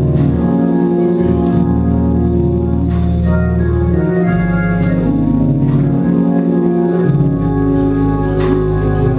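Organ playing sustained chords, the bass note moving every second or two.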